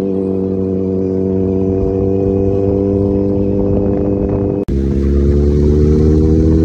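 Kawasaki Z900 inline-four with an SC-Project full exhaust running at steady cruising revs. The sound breaks off for an instant about four and a half seconds in, then picks up again a little higher and slowly rising.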